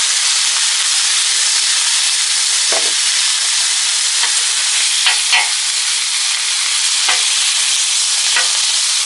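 Thin-sliced ribeye, green peppers and mushrooms sizzling loudly and steadily on a Blackstone flat-top griddle at high heat, searing. A few short clicks stand out over the sizzle.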